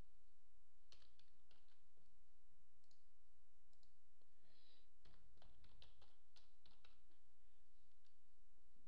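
Scattered computer mouse clicks, then a quick run of keyboard key presses in the second half.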